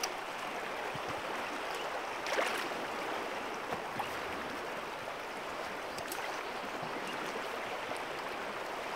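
River current rushing steadily over rocks, a continuous even hiss of flowing water. A brief louder noise comes about two and a half seconds in.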